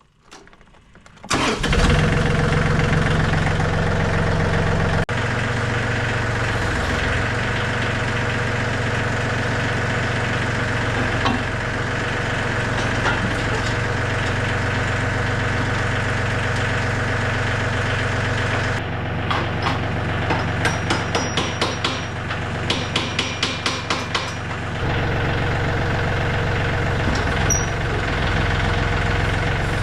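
John Deere 3320 compact tractor's diesel engine starting about a second in, then idling steadily. Partway through, a run of quick clicks and knocks sounds over the engine.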